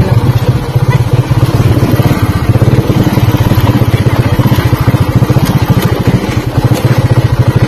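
Motorcycle engine idling with a rapid, even putter.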